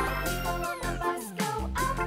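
Background music: an upbeat electronic tune with a steady bass and a run of notes sliding downward in pitch.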